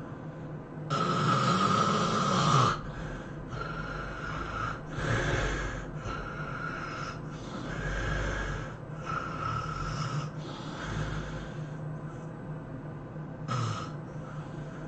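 A person snoring heavily in sleep. One long, loud snore comes about a second in, followed by a run of shorter, weaker snores and breaths about every second, and one brief snore near the end.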